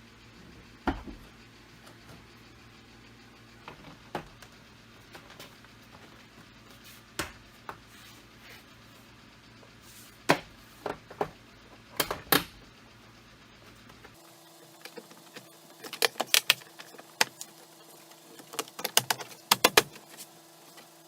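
Scattered sharp clicks and knocks of hand tools and small hardware being worked on a Jeep door. About fourteen seconds in the background changes abruptly, and after that the clicks come in quick clusters.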